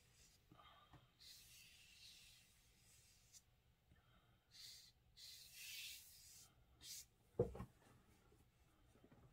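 Faint swishes of a wet paintbrush stroked across watercolour paper, in several short strokes. There is a brief low thump near the end.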